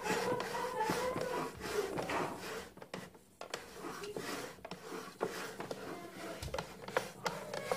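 Irregular rubbing and knocking handling sounds, with a wavering pitched tone in the first second and a short lull about three seconds in.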